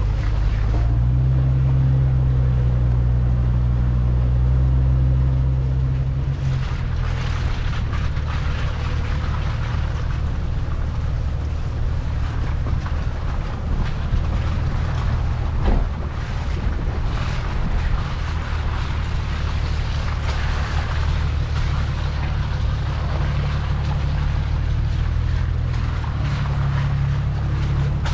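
Small Jeep's engine running steadily at low trail speed, a low drone that is heavier for the first six seconds or so and then settles, with a single sharp knock about halfway through.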